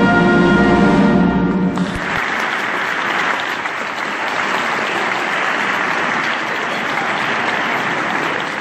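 Wind band holding its final chord, which cuts off about two seconds in, then steady audience applause.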